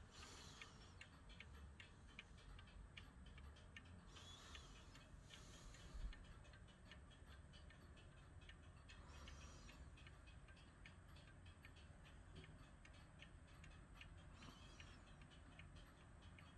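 Eluxa Swiss 8-day pendulum clock movement ticking quickly and evenly as its pendulum swings, faint. A soft low bump comes about six seconds in.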